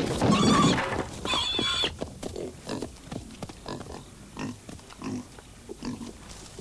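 A pig squeals loudly twice, then grunts over and over in short, uneven grunts.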